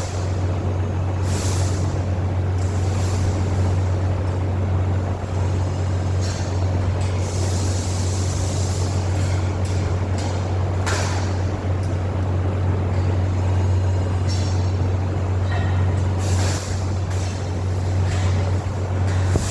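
Steady low machine hum under broad running noise, with short bursts of hiss every few seconds.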